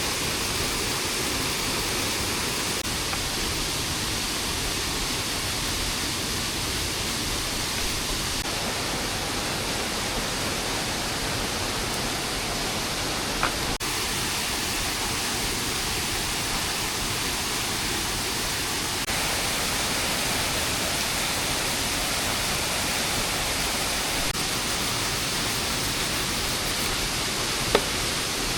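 Steady hiss of rain falling in the forest, with two brief sharp clicks, one about halfway through and one near the end.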